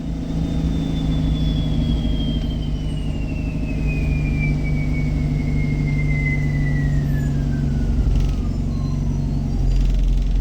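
A bus's drivetrain rumbling steadily, with a high whine that falls smoothly and steadily in pitch over about nine seconds and fades out near the end.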